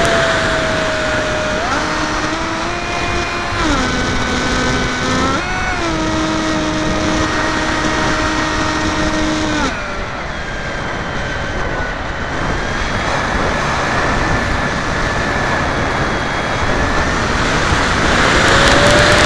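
Electric motor and propeller of a Multiplex FunJet RC jet heard from a camera on the plane: a whine that steps up and down in pitch, over steady wind rush on the microphone. About ten seconds in the whine drops to a faint tone, and it rises again near the end.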